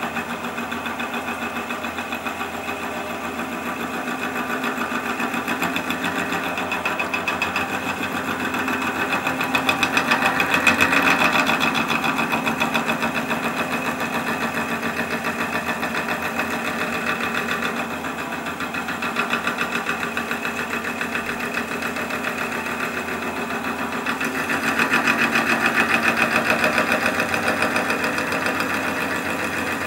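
Wood lathe running while a long twist drill bit, held still, bores slowly into the end grain of a spinning wooden handle blank: a steady machine sound with a fast pulsing chatter, growing louder around ten seconds in and again around twenty-five seconds in. The bit is not quite centred on the work, so it is fed in slowly in the hope that it will right itself.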